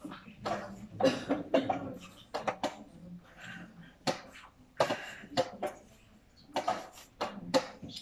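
Irregular sharp clicks and clacks of draughts pieces set down on boards and chess-clock buttons pressed, about one to three a second, at uneven loudness.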